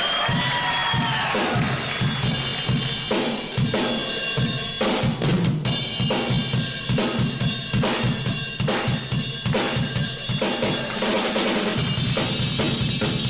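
Drum kit played fast and hard: a dense run of snare, tom and bass drum hits with cymbals ringing over them.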